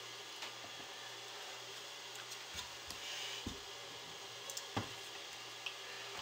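A few soft knocks and a brief scrape as a soap loaf and bar are handled on the wooden frame and plastic base of a wire soap cutter, the sharpest knock near the end, over a steady hiss.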